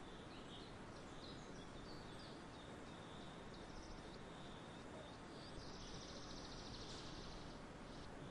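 Faint bird chirps over a steady background hiss, with a buzzy trill about five and a half seconds in that lasts over a second.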